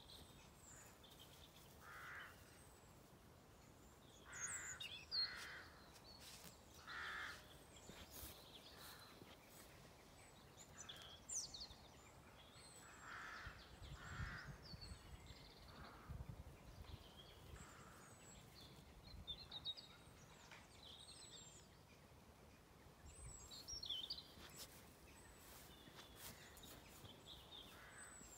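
Crows cawing faintly now and then, a short call every few seconds, with small birds chirping high and thin in the background.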